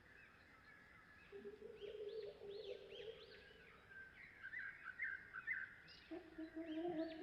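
Bird calls layered into a homemade Tyrannosaurus rex sound effect, built from chicken and ostrich recordings. A low, wavering drawn-out call sounds twice, starting about a second in and again near the end, under many quick high chirps.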